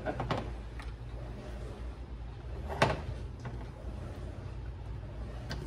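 Ladle scooping thick salsa from a pot and tapping against the pot and a canning funnel while filling a glass jar, with light clicks near the start and one sharp knock about three seconds in, over a steady low hum.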